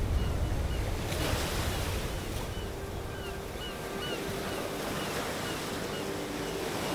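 Ocean surf: a steady wash of waves against the shore, with a faint high chirping repeating over it.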